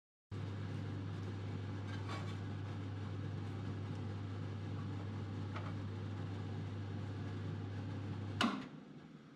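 A kitchen appliance running with a steady low electrical hum and a few faint clicks. About eight seconds in, a sharp click is heard and the hum stops as the appliance is switched off.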